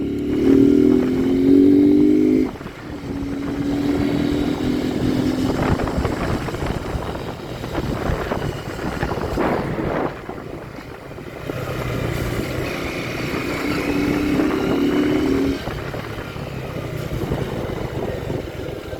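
Motorcycle engine running while riding, climbing in pitch as it accelerates near the start and again near the end, over steady wind and road rush.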